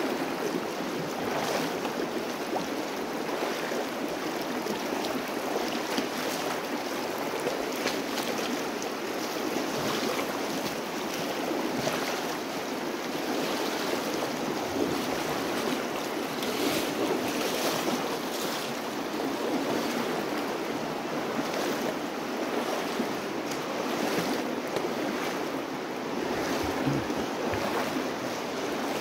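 The North Fork of the Virgin River rushing over its rocky bed in a steady wash of noise, with brief louder swishes every second or two.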